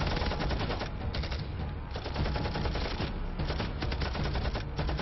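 Gunfire in a battle: rapid rattling machine-gun and rifle shots in several bursts with short pauses between them.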